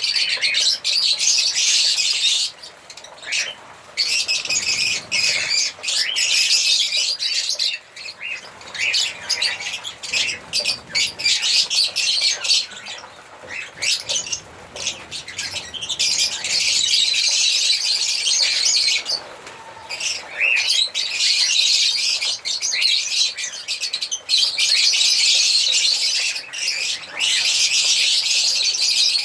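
A group of African lovebirds chattering in dense, high-pitched chirps and squawks, in long runs of several seconds broken by short pauses.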